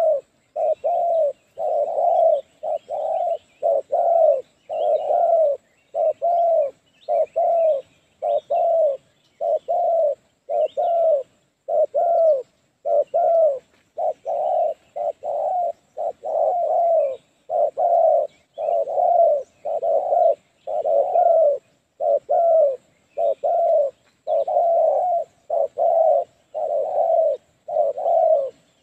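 Spotted doves cooing: an unbroken series of short, low coos, a little more than one a second.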